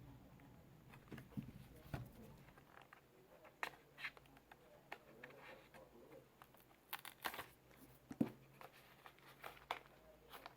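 Faint, scattered clicks and rustles of a RAM kit's retail box being handled as its seal is broken.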